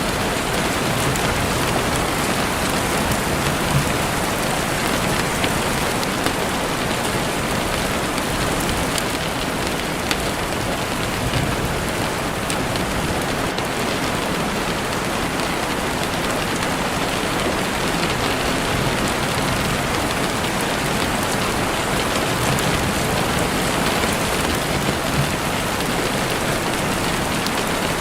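Steady rain falling through trees, with a campfire crackling in a few sharp pops now and then.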